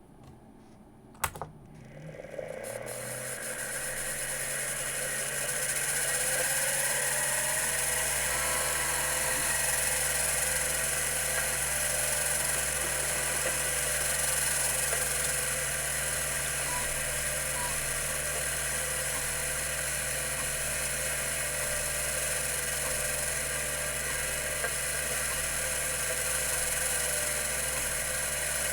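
Computer Memories Inc. CM-5412, a 5.25-inch full-height two-platter MFM hard drive, powering up: a sharp click about a second in, then the platters spin up with a rising whine over several seconds and settle into a steady whir at running speed.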